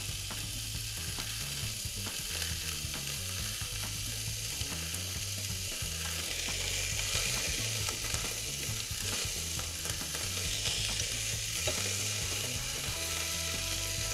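Minced-meat kebab balls frying in a hot pan, a steady sizzle.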